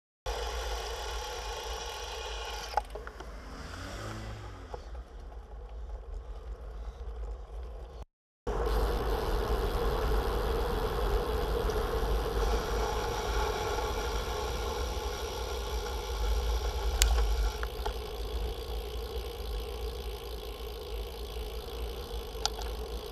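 Wind rushing over the microphone of a camera on a moving road bike, with a low rumble and a steady hum from the tyres rolling on asphalt. The sound cuts out completely for a moment about eight seconds in.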